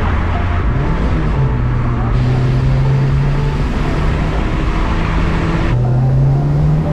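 Car engine heard from inside the cabin, accelerating through the gears: its pitch climbs, drops at a gear change about a second and a half in, climbs steadily, then drops at another change near the end and rises again, over steady road noise.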